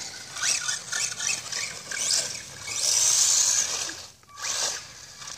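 Redcat Piranha RC truck's motor whining in repeated bursts of throttle, the pitch rising and falling, loudest and longest about three seconds in. The truck is running on bald slick tyres that get little grip.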